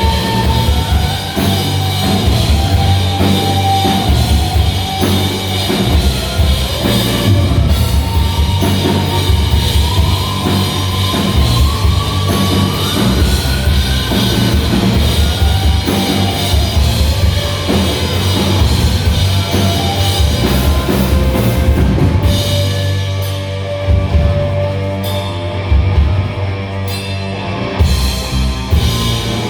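Rock band playing live, a drum kit keeping a steady beat under the instruments; the high end of the mix thins out for the last several seconds.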